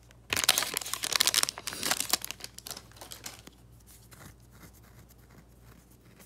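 Foil wrapper of a 1991-92 Upper Deck hockey card pack crinkling and tearing as the pack is opened: loud crackling bursts for about two seconds, then fainter crackles that die away.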